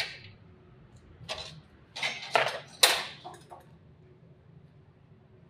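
Short metallic clatters and scrapes as a welding electrode holder and welding rods are picked up and handled on a steel workbench. The loudest rattles come about two to three seconds in.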